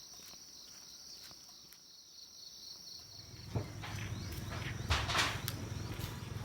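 Insects chirring steadily in a high, even trill. About three seconds in the chirring stops and a louder low rumbling noise with a few sharp clicks takes over.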